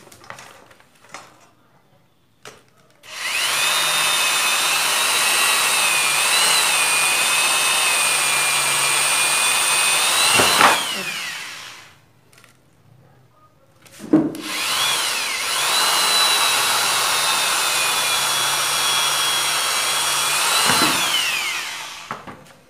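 Corded electric drill boring holes through a PVC pipe, run twice for about seven to eight seconds each: the motor winds up to a steady high whine, then winds down as the trigger is released. A few light clicks come before the first run.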